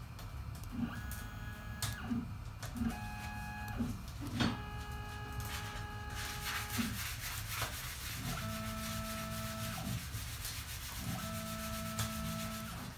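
MPCNC stepper motors whining through about five short jog moves, each a steady tone of its own pitch that starts and stops with a click; the longest runs about two seconds. A steady low hum runs underneath.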